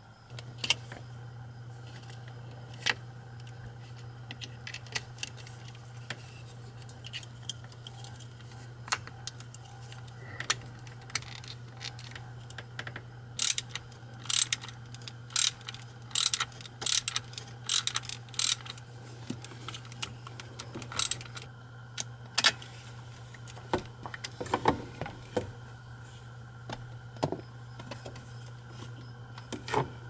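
Irregular metallic clicks and clinks of hand tools and small parts during hand work on a truck's steering column, the ignition switch being bolted back in. They come singly and in quick clusters, thickest in the middle, over a steady low hum.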